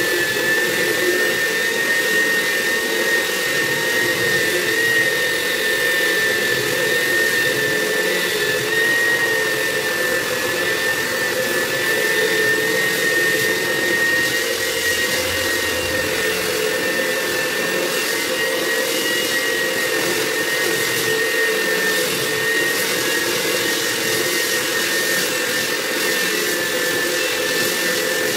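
Handheld electric belt sander running steadily with a high whine, its abrasive belt sanding across the face of a wooden slab.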